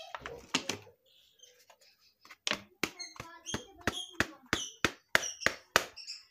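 Plastic air filter housing of a Honda Vario scooter knocking and clattering as it is handled over a metal basin. There are a couple of sharp knocks about half a second in, then a quick run of about a dozen knocks, roughly three or four a second.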